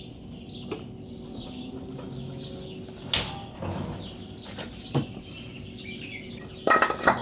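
Metal clinks and knocks of a socket and breaker bar being fitted onto a car's axle nut, with a quick run of clicks near the end. Birds chirp faintly in the background.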